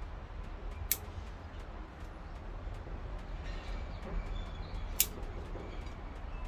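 Bonsai scissors snipping off shoots: two sharp snips about four seconds apart, over a low steady background rumble.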